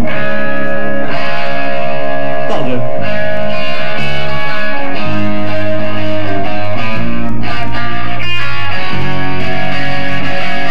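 Live rock band playing electric guitars, bass guitar and drums, very loud, in sustained chords that change every second or two; the band comes in at the very start.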